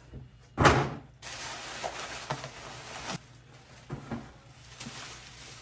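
Tissue paper rustling and crinkling as a paper-wrapped handbag is lifted out of its box. There is one loud crumple about half a second in, then softer crackling rustles.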